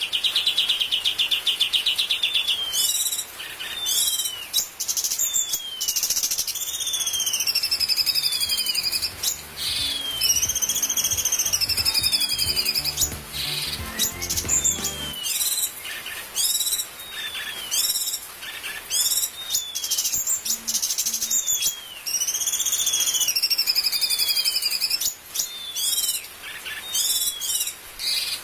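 Cucak cungkok singing continuously: a busy, varied song of high whistles, quick trills and short downward-sweeping notes, repeated phrase after phrase. A faint low rumble lies underneath for a few seconds in the middle.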